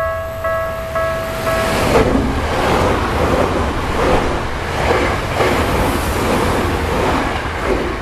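An electronic level-crossing bell rings in repeated ding strokes, about two a second. Some two seconds in, an electric commuter train passes through the crossing, its wheels rumbling and clattering on the rails and drowning out the bell until near the end.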